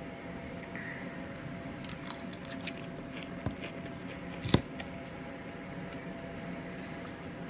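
Close-up eating sounds: chewing with small clicks and squishes, over a low steady hum. About halfway through comes one sharp clink, the loudest sound, as the metal fork picks up salad from the plate.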